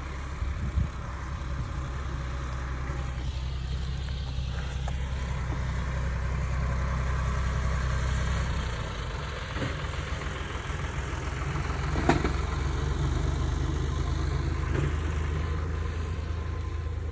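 Tractor engine running steadily at close range, a low drone whose note changes about halfway through.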